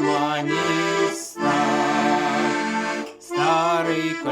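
A Tula 301M garmon in F major playing sustained chords over a bass, with two brief breaks in the sound. Near the start a voice sings the last word of a line over it.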